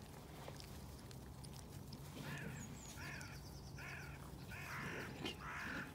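Crows cawing: a run of about five harsh caws starting about two seconds in, the last ones longer.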